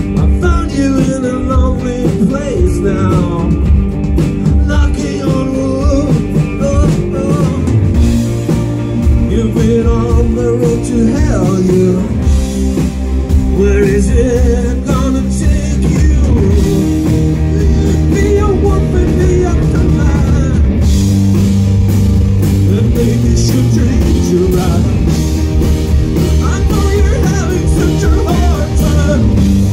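A rock band playing live: a singer over electric guitars, bass and drum kit, with the cymbals growing busier about two-thirds of the way through.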